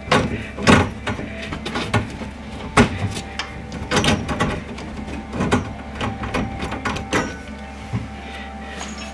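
Irregular knocks, clicks and scrapes of hands working a brass shower valve body and its copper pipes in an open wall, with metal and pipe handling noises every second or so.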